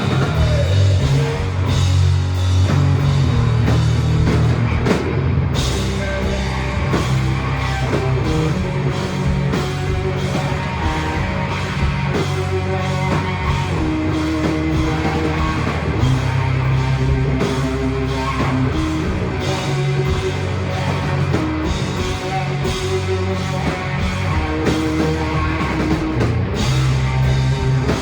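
Rock band playing live, with electric guitar and a drum kit, in the middle of a song.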